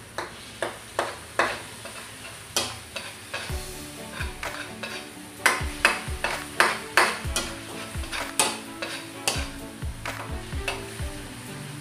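Metal spoon scraping and knocking against a stainless steel wok while stirring onions and garlic frying in butter, over a low sizzle. The spoon strikes come irregularly, loudest and quickest about halfway through.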